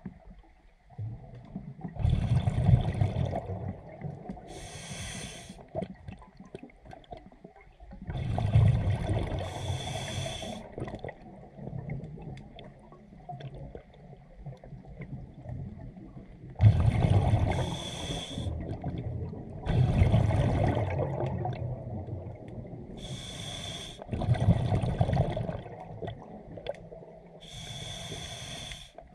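Scuba diver's regulator breathing: a hiss on each inhale and a burst of rumbling exhaust bubbles on each exhale, a breath every few seconds.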